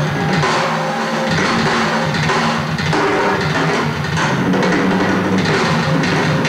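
Drum solo on a rock drum kit with two bass drums: continuous fast playing of kick drums, snare, toms and cymbals, with no pauses.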